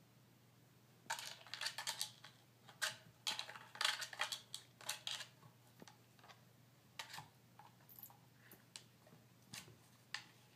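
Cavalier King Charles spaniel gnawing a rawhide bone: a dense run of sharp crunching cracks for about four seconds, then scattered single cracks.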